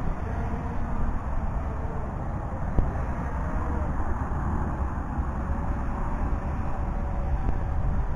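Wind buffeting the microphone, with the faint, slowly wavering whine of a drone's electric motor and propeller flying overhead in the distance.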